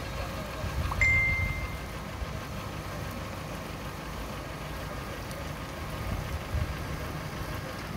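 Center-pivot irrigation machine running, its drop sprinklers hissing as they spray water, over a steady low rumble. About a second in, a short high tone sounds.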